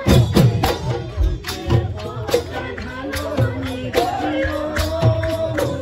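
Assamese Bihu folk music: a dhol drum struck in a lively rhythm, its strokes dropping in pitch, with small cymbals ticking along and a held, wavering melody line over it.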